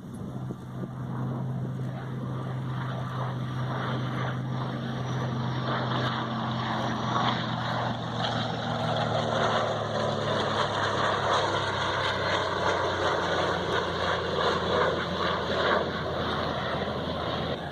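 Jet engine of a TA-4 Skyhawk flying a display. A steady low hum fades out about ten seconds in, while a broad rushing engine noise grows stronger.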